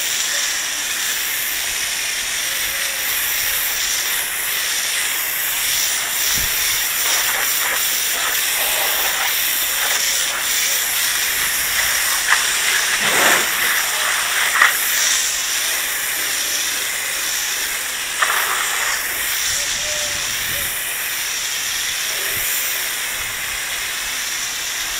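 Pressure washer's high-pressure water jet spraying onto porcelain patio slabs: a steady hiss, with a few short louder spurts about halfway through.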